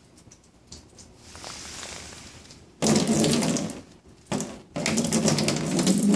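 A stream of water splashing onto a coated car hood. It starts suddenly about three seconds in, stops for a moment a second later, comes back briefly, then runs on from near five seconds.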